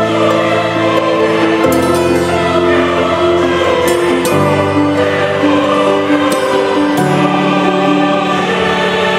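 Background music of slow, held chords that change every second or two.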